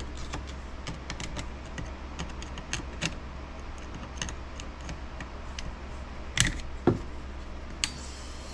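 Snap ring pliers working a stubborn snap ring off a transfer case shaft: many small metallic clicks and scrapes, with two louder knocks about six and a half seconds in, over a low steady hum.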